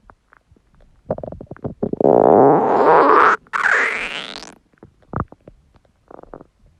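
Empty stomach growling: a run of small gurgles, then a loud, drawn-out growl about two seconds in that rises in pitch toward its end. A short pop and a few faint gurgles follow.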